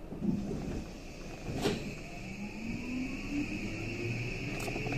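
JR West 323 series EMU's Mitsubishi full-SiC VVVF inverter and traction motors whining, several tones rising steadily in pitch as the train accelerates, heard inside the car. A steady high tone runs underneath, and there is a single sharp click about a second and a half in.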